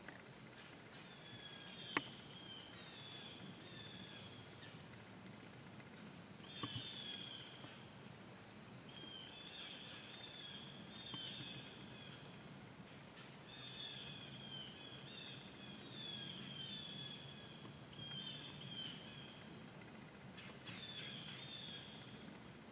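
Faint woodland ambience: a steady high-pitched insect drone, likely crickets, with runs of short, falling bird chirps. A sharp click sounds about two seconds in and a softer knock near seven seconds.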